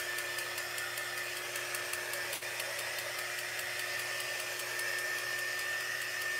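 Small handheld craft heat gun blowing hot air to dry chalk paste, its fan motor running with a steady high whine. One faint click about two and a half seconds in.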